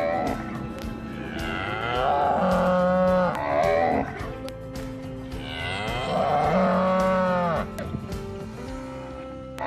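Cow mooing: two long, drawn-out moos of about two seconds each, with a shorter call at the start and another at the very end, over soft background music.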